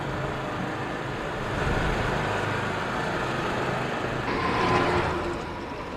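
1999 Formula One cars' V10 engines running at high revs on track, swelling loudest about four seconds in as a car goes past.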